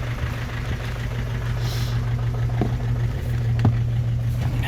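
Opel Vivaro 2.0 four-cylinder diesel engine idling steadily, with a few sharp knocks. The owner reports an unexplained knock in the engine and says it smokes.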